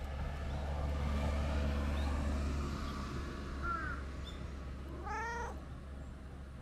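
Domestic cat giving a single short meow that rises and falls in pitch, a little past five seconds in.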